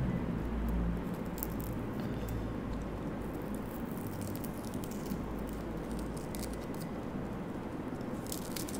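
Fingers picking at and peeling a paper band off a cigar: faint, scattered crinkles and scratches of paper.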